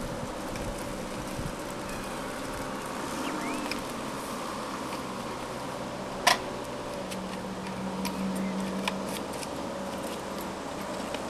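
A bicycle being brought to a stop and stood up: one sharp metallic click about six seconds in, with a few fainter ticks later, over a steady outdoor hiss.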